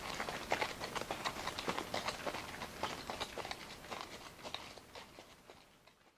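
Hoofbeats of several horses running, many overlapping irregular hoof strikes on hard ground that grow steadily fainter and fade out near the end.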